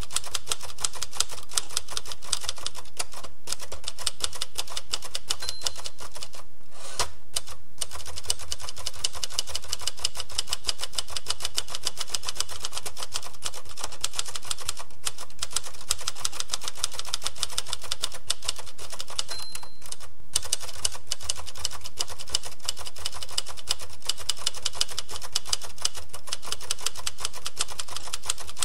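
Manual typewriter keys clacking in rapid, continuous typing, with a few short pauses. A short ding of the carriage bell sounds twice, about five seconds in and again near twenty seconds.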